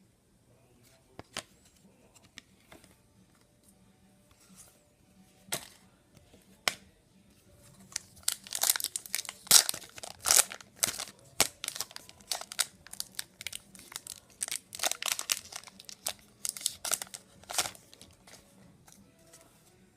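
Plastic hockey card pack wrapper being torn open and crinkled: a few light clicks of cards being handled, then about ten seconds of dense crackling tears and crumples in the second half.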